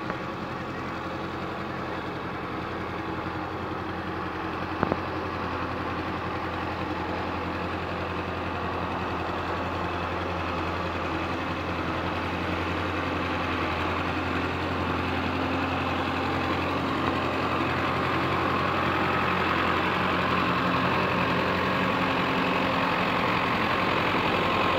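Belarus tractor's diesel engine running steadily as it drags a rear blade through a flooded field, growing louder as it comes closer. One sharp click sounds about five seconds in.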